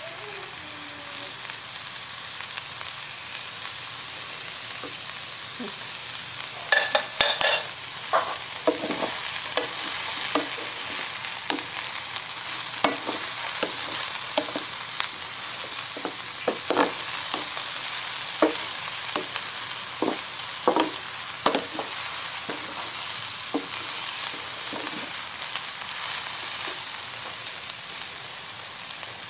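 Fried tofu cubes and red bell pepper sizzling steadily in oil in a nonstick pan. A wooden spatula scrapes and knocks against the pan as the mix is stirred, with the sharpest knocks about seven seconds in and scattered ones after.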